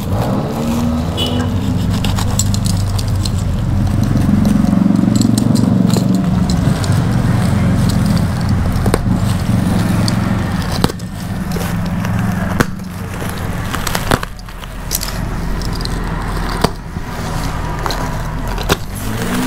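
A box cutter scraping and snapping through the stitched seam of a woven-plastic sack bale, making sharp clicks and rasps over a steady low hum.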